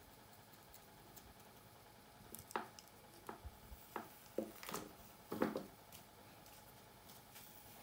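Fingernails and a wooden hair pick working through hair at the scalp, close to the microphone: an irregular run of short scratchy clicks and crackles, starting about two seconds in and dying away a second or two before the end.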